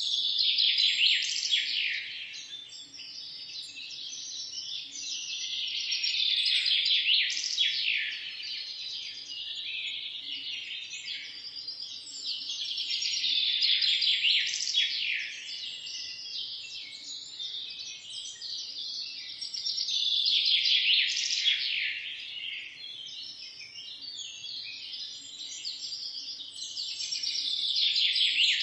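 Many small birds chirping and twittering together in a dense chorus, the calling swelling and easing off about every seven seconds.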